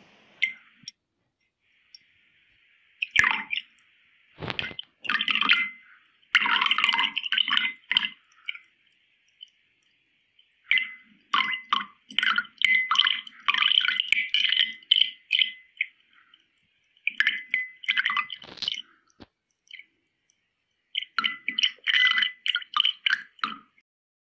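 Milk pouring into a glass: irregular runs of splashing and bubbling, broken by pauses of a second or two.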